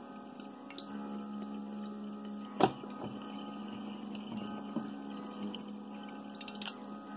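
Steady electrical hum under the faint bubbling of water in a glass dab rig as it is drawn on, with one sharp knock about two and a half seconds in and a few small clicks near the end.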